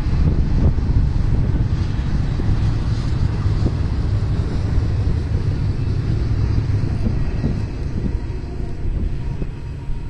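Double-stack container cars of a freight train rolling past on the rails: a steady low rumble with a few faint clicks.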